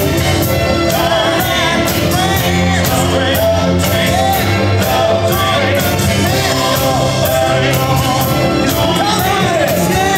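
DJ's dance music playing loud, with a singer over a steady drum beat.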